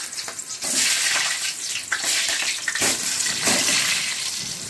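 Whole peeled potatoes going one by one into hot oil in a steel kadhai, the oil sizzling loudly, with a fresh surge of sizzling as each potato goes in, about a second in and again near three seconds.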